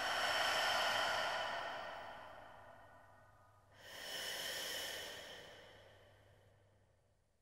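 Two soft swells of breathy, hiss-like noise in the closing soundtrack. Each rises quickly and fades away over about three seconds: the first right at the start, the second about four seconds in, before the track cuts off.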